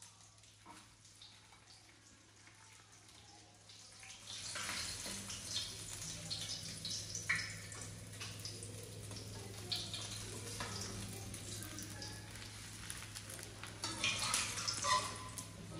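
Whole hogfish frying in hot oil in a pan, a crackling sizzle that sets in about four seconds in and grows louder near the end, with a few sharp clicks of the utensil against the pan as the fish is turned and lifted out.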